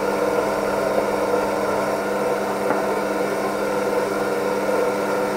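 SMEG stand mixer's motor running steadily at a slow speed, a constant hum, as it mixes carrot cake batter.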